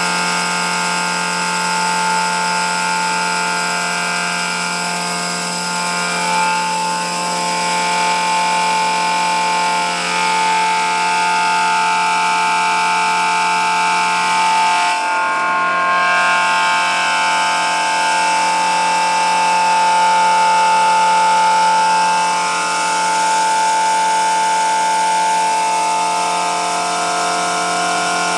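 Mobile feed mill truck's machinery running steadily, its suction hose drawing up corn. It gives an even, loud mechanical whine of several steady tones that hardly changes.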